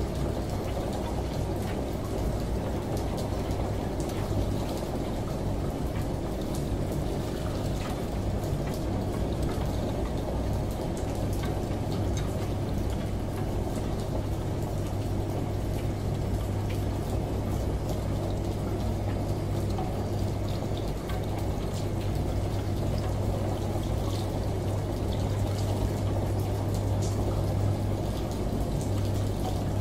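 Mixed ambience of a running shower and rain: a steady rush of water with scattered drip ticks, over the constant low hum of a washing machine.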